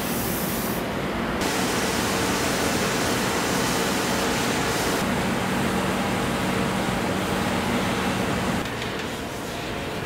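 Steel kitchen-knife blades held against spinning grinding and polishing wheels: a steady grinding hiss over the hum of the wheel motors, its tone shifting abruptly a few times.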